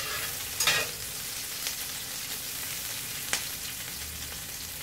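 Sliced onions sizzling in hot oil in a stainless steel pan as they are stirred, turning half-translucent. A few sharp clicks of the utensil against the pan, the loudest just under a second in.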